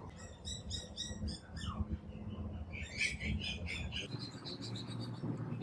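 Animal chirping: quick series of short high notes, about four a second, with a louder cluster midway, over a low steady rumble.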